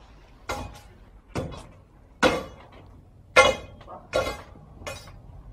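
Sledgehammer blows on stone rubble, breaking up debris: six sharp strikes less than a second apart, the third and fourth the loudest.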